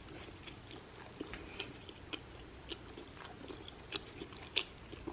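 A person chewing a shrimp taco in a flour tortilla: faint, irregular mouth clicks and smacks, with one louder click near the end.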